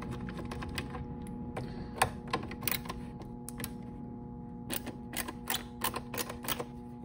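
Screwdriver taking the screws out of a Texas Instruments Speak & Read's plastic case: scattered clicks and ticks of the tip and screws against the plastic. The sharpest click comes about two seconds in, and a quick run of clicks follows near the end.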